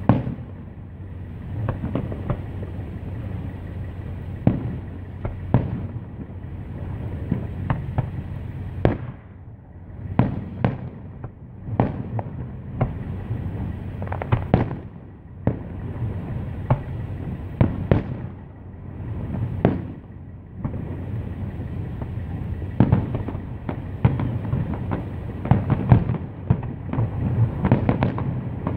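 Aerial fireworks shells bursting in an irregular string of sharp bangs, one to a few every second, over a steady low rumble. The bangs come thicker and louder in the last third.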